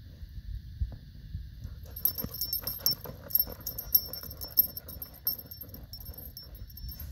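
Husky sniffing and snuffling with its nose pushed into a hole in gravelly ground. From about two seconds in, for a few seconds, its harness jingles with sharp metallic clinks as it roots about.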